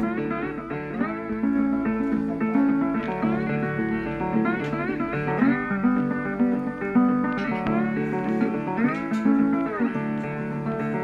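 Background music: a plucked string melody with notes that bend and slide in pitch, over a steady accompaniment.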